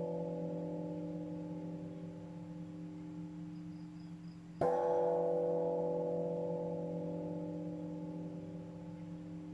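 A deep meditation bell is struck once about four and a half seconds in and rings with several tones, fading slowly. At the start, the ring of an earlier strike is still dying away.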